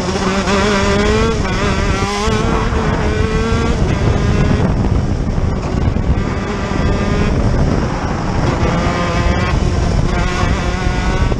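A shifter kart's two-stroke engine running hard on track, with its pitch climbing under throttle and dropping sharply at gear changes and on lifting off, several times.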